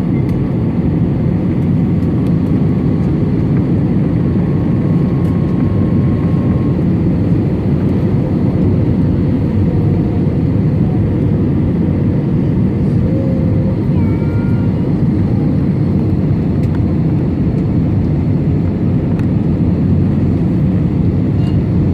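Airbus A320-200 in flight: steady engine and airflow noise, a low even rumble.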